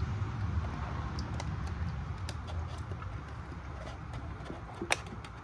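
Light clicks and taps of oil bottles and a funnel being handled while motor oil is added, over a steady low background rumble; one sharper click near the end.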